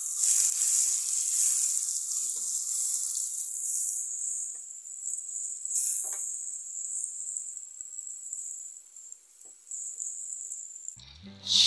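Butter sizzling as it melts and foams in a hot nonstick pan, a steady high hiss, with a few faint taps of a silicone spatula moving it around.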